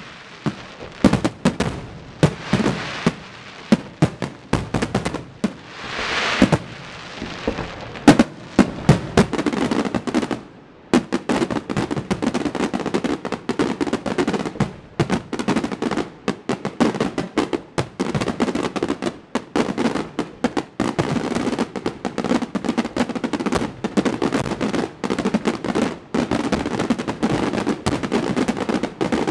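Aerial firework shells bursting. Separate bangs with crackle come for about the first ten seconds, then a dense, rapid barrage of reports with hardly a gap.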